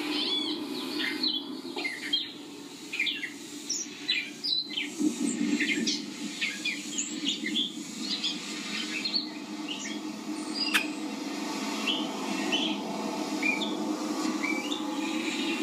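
Songbirds chirping and calling in quick succession, played through a television's speakers, over a steady low hum. One sharp click comes about two-thirds of the way in.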